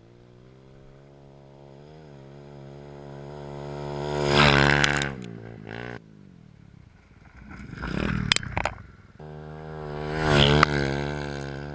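Dirt bike engine passing close by three times in separate cuts: each time it grows louder as it approaches, peaks as it goes past and fades away. Sharp clatters come during the middle pass.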